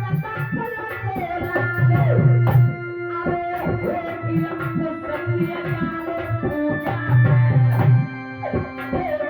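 Instrumental passage of Indian devotional folk music: hand drums of the tabla kind play a busy rhythm with deep booming strokes, under a sustained melody line.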